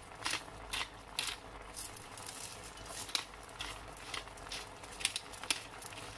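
Spice mill being twisted over a pan of simmering curry, a quick run of short gritty grinding crunches, a few each second, over the soft bubbling of the sauce.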